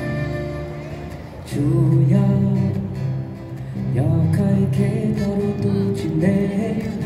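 A small live band playing through a PA: accordion with strummed acoustic guitar and electric guitar, held notes with rising pitch slides.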